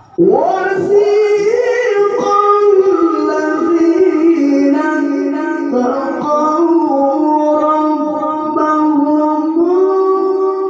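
A man chanting Qur'an recitation (tilawah) in a high, melodic style into a handheld microphone. It sets in abruptly and holds long notes with ornamented melismatic turns.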